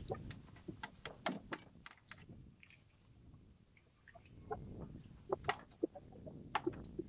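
Scattered sharp clicks and light taps of eating at a table: hands and utensils on plates, a knife and sea urchin shells. There is a brief lull about three seconds in.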